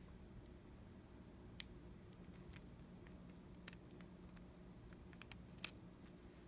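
Faint, scattered small clicks and taps from handling small repair tools and parts on an iPhone being disassembled, over a low steady hum.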